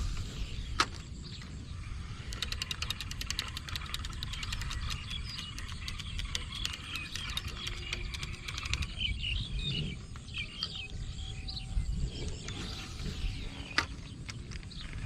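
Rural outdoor ambience: birds chirping, a rapid run of ticking that stops and starts, and a steady low rumble underneath, with a few sharp clicks.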